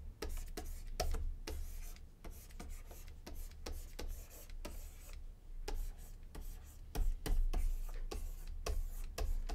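Irregular light clicks and taps of a pen stylus on a drawing tablet as letters are drawn stroke by stroke, over a low rumble.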